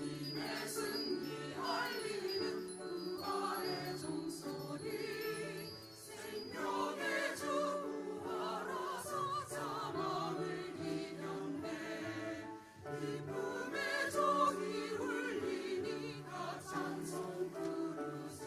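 A church choir singing an Easter anthem in several parts, voices held with vibrato, breaking briefly between phrases about six and thirteen seconds in.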